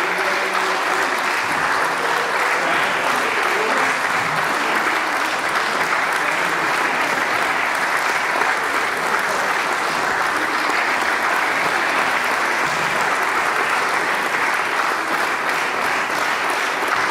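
Audience applauding steadily, a dense, even round of clapping.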